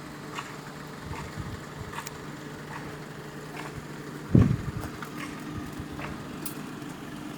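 Steady low machine hum, with a single loud thump about four and a half seconds in and a few faint clicks.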